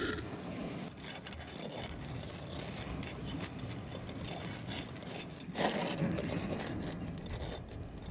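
Irregular scraping and rubbing noises with scattered clicks, louder for a moment about five and a half seconds in.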